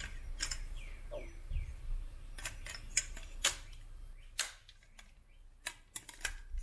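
Light plastic clicks and rattles from a fuel pump wiring connector and its plastic housing being handled and fitted together, with a dozen or so sharp, irregular clicks.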